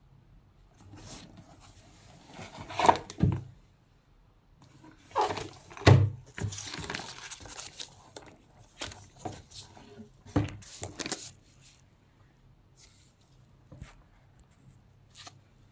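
Handling noise from unboxing a handbag: irregular rustling of packaging with a few soft knocks and clicks, coming in bursts about three seconds and six seconds in and again near eleven seconds.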